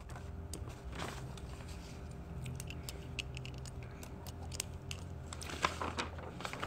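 Quiet room tone: a steady low hum with faint, scattered light clicks.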